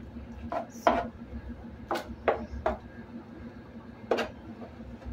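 Seasoning paste being rubbed by hand onto a whole raw fish lying on parchment paper: about six short crinkling, wet rubbing sounds, the loudest about a second in.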